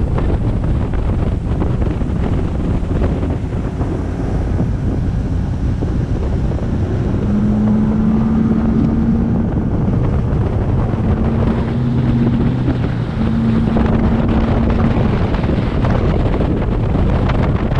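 Bass boat running fast under outboard power, the motor's drone mixed with heavy wind buffeting on the microphone and water rush. A steady engine tone comes and goes in three stretches in the middle.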